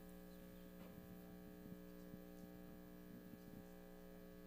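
Near silence, with a steady electrical mains hum and a few faint small knocks.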